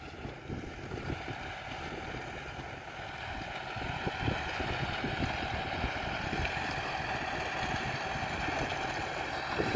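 Farm tractor's diesel engine running steadily under load as it pulls an inter-row cultivator through a sugar beet field, slowly growing louder as it comes closer.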